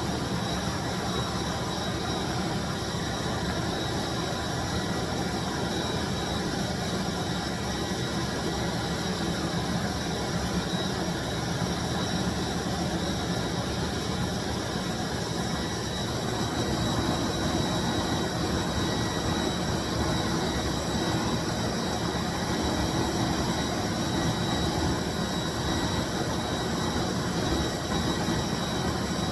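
A 1995 Bissell SC deep cleaning machine runs steadily: a constant motor rush with a thin high whine. It gets slightly louder a little over halfway through.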